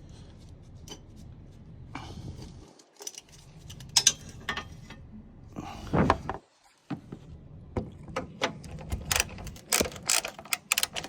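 Ratchet wrench clicking in short runs as a bolt is loosened, with scattered knocks of tools on metal; the clicks come quicker in the last few seconds.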